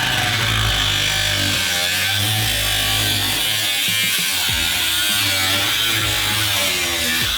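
Power tool cutting through the sheet-metal floor of the spare-tire well, buzzing continuously with its pitch wavering under load.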